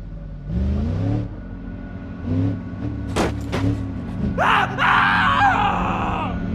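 Background music, joined about four and a half seconds in by a loud, wavering, high cry-like sound lasting nearly two seconds.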